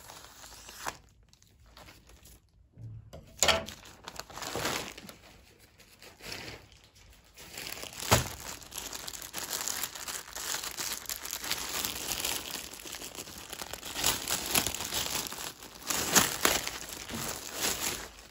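Plastic courier mailer bag being torn open and a garment's clear plastic wrapper crinkled as a sweatshirt is pulled out of it: irregular rustling and crinkling, with a few sharper rips in the first half and dense, continuous crinkling through the second half.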